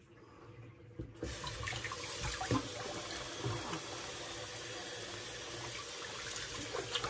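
A tap turned on about a second in, then water running steadily into a sink while the face is rinsed with the hands after a shave.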